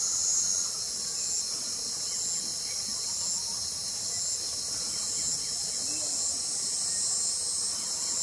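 A steady, high-pitched chorus of insects calling, with one call over it that pulses on and off about once a second.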